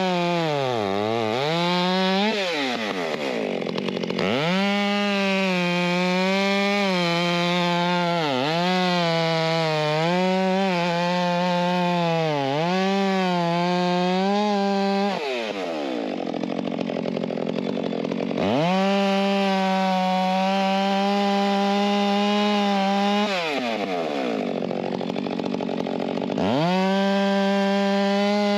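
Two-stroke chainsaw cutting firewood at full throttle, its pitch sagging and wavering as the chain bites into the log. The throttle is let off between cuts, about 2, 15 and 23 seconds in, and the engine revs back up each time.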